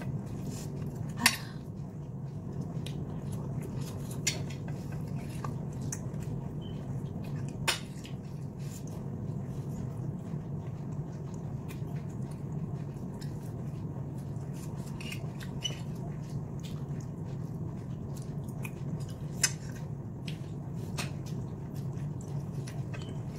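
Metal fork clinking and scraping against a ceramic plate, a handful of sharp clinks spread out with the loudest about a second in, over a steady low hum.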